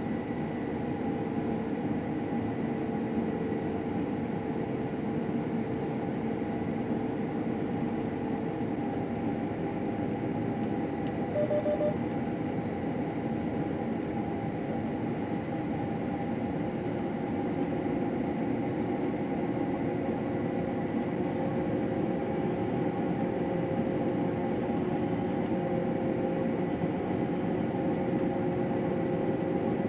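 Combine harvester running steadily under load while cutting wheat: a continuous machine rumble with a steady hum. A short electronic beep sounds once, about eleven seconds in.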